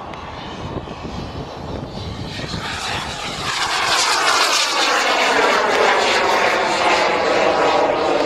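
Black Mamba microturbine of an RC Mirage F1 model jet on a flypast. The turbine's rushing roar and whine grow louder as it approaches, then the whine falls steadily in pitch as the jet passes and moves away.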